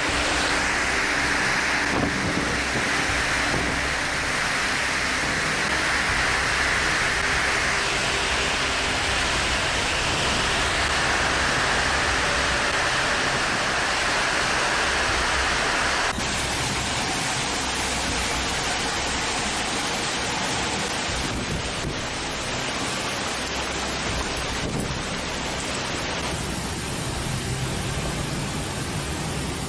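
Heavy rain in a storm, a steady loud rushing hiss, with abrupt changes in tone about halfway through and again near the end.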